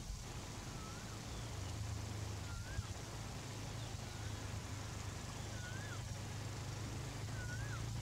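A low steady hum with a bird's short whistled note over it. The note rises and falls and comes about every one and a half to two seconds, five times.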